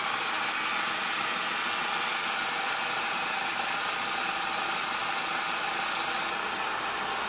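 Cuisinart Elemental 11-cup food processor running steadily, its chopping blade grinding finely chopped peanuts as they begin turning into peanut butter.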